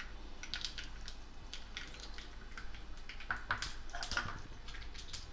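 Mustard seeds frying in hot oil in a small pan: a light sizzle with irregular crackling pops, busier in the second half. The spluttering is the sign that the oil is hot enough for the tempering.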